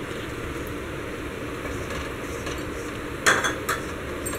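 Metal spatula stirring and knocking in a kadhai of melting ghee, with a sharp metal clatter about three seconds in and a lighter one just after.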